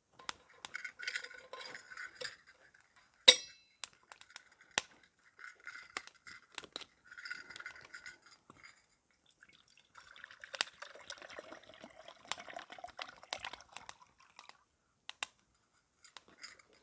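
A small metal camp cup clinks as it is handled and set down, with one sharp ringing clink about three seconds in. Then there is the splash and trickle of water poured from a plastic bottle into the cup, ready to be boiled.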